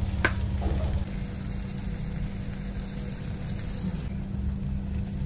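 Gas stove burner running under bowls of grilling balut eggs: a steady low rumble, with a short click about a quarter second in.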